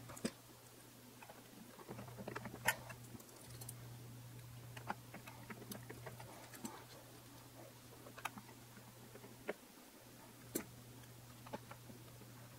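Faint, scattered small clicks and ticks of a hand screwdriver and Phillips screws being started into a landing-gear mounting plate, over a low steady hum.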